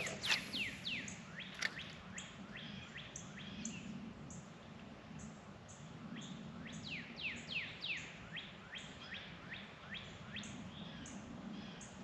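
Songbirds chirping: a run of quick calls that slide downward in pitch, two or three a second, mixed with short thin higher notes.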